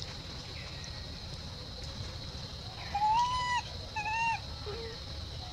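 Two short, high, whimpering animal calls about a second apart, the first slightly longer, over a steady high-pitched background hum.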